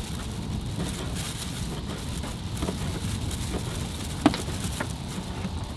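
Steady wind rumble on the microphone, with a few soft knocks of a knife cutting fish into small pieces; one sharper knock about four seconds in.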